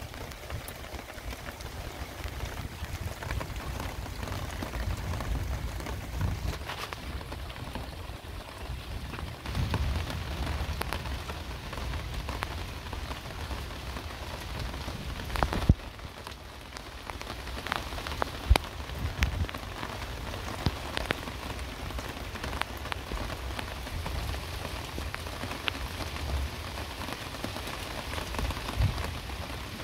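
Heavy rain falling steadily on hard surfaces, with a low rumble underneath. Two sharp, loud taps stand out a little past halfway.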